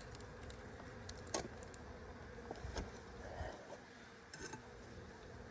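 Honeybees humming faintly and steadily around the hive, with a few light clicks of handling about a second in and again near the end.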